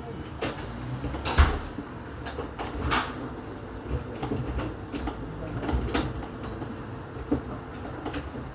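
Irregular knocks and clunks over a steady low hum, with a thin high whine that starts about six and a half seconds in.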